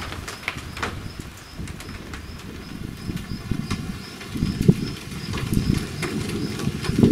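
Storm wind gusting against the microphone in an uneven low rumble that swells about four and a half seconds in and again near the end, with scattered sharp taps over it.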